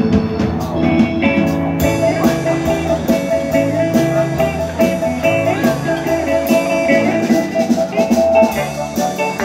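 Live band playing a steady-tempo number, with electric guitar carrying the melody over a drum kit's regular beat.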